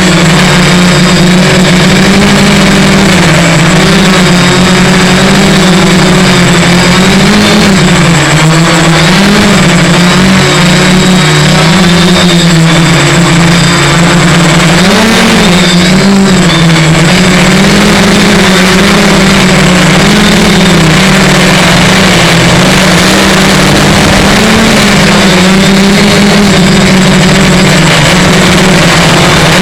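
Multicopter's electric motors and propellers humming loudly and continuously. Their pitch keeps wavering up and down as the motors speed up and slow down while flying in strong wind, over a constant rushing noise.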